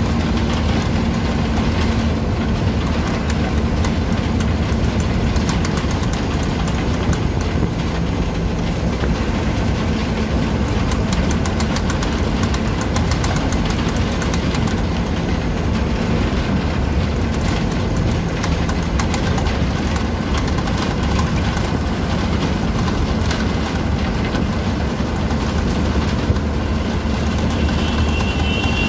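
Bus engine running as the bus drives along, heard from inside the cabin, with a steady low hum and many small rattles from the bus body and fittings.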